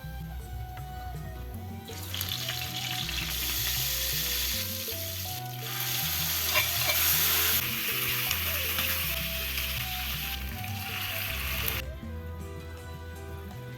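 Food frying in hot oil in a pan: a loud, even sizzle that starts about two seconds in and stops sharply near the end, with stirring. Background music plays underneath.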